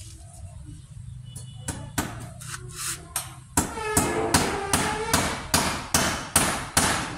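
Hammer striking nails into a metal window grill's frame: a few scattered taps, then from about halfway a steady run of blows, two to three a second, some followed by a short metallic ring.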